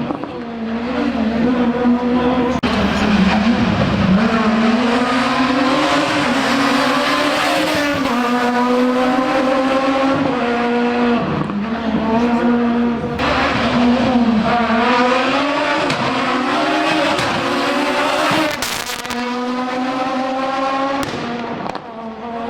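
Rally car engine revving hard through a special stage, its pitch climbing and dropping again and again with gear changes and lifts off the throttle.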